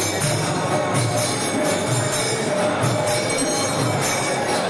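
Devotional music with steady jingling percussion over a regular low drum beat.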